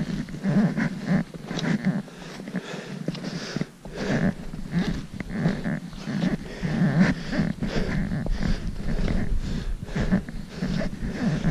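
Footsteps crunching in packed snow, one after another, with the walker's heavy breathing close to the microphone.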